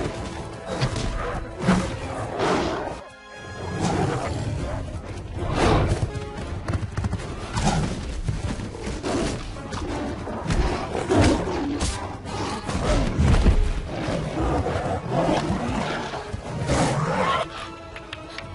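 Dramatic film music over a fight between animals: snarls and growls with heavy thuds. The sound dips briefly about three seconds in.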